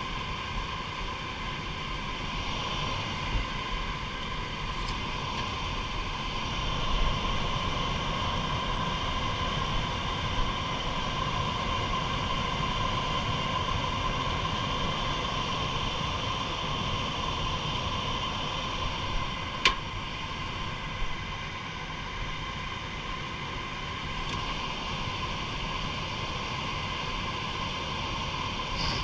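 A steady mechanical drone with a constant whine, and one sharp click about two-thirds of the way through.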